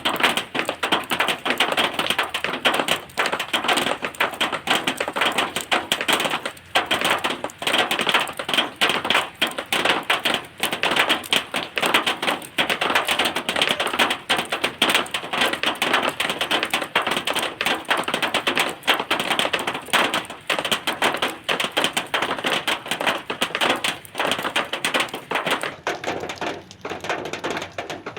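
Rain water falling on a zinc (galvanized metal) sheet: a dense, continuous run of irregular metallic taps from the drops, easing slightly near the end.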